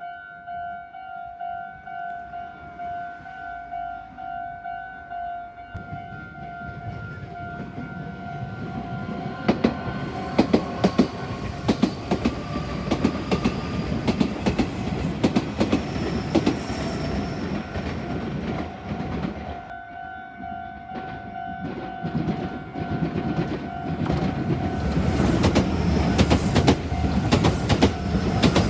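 A Japanese level crossing's electronic warning bell rings in steady pulses while a Meitetsu Nagoya Main Line train rumbles through, its wheels clacking over the rail joints. The bell carries on as a second train comes in near the end.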